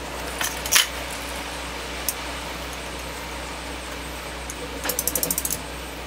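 A few sharp clicks from the plastic connector being handled, then near the end a quick run of about ten clicks as a snap-off utility knife's blade is slid out, over a steady low hum.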